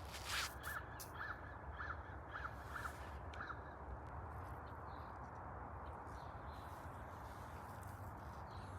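A crow cawing about seven times in a quick series, roughly two calls a second, then falling silent about three and a half seconds in, over a faint steady background noise. A sharp click just after the start is the loudest sound.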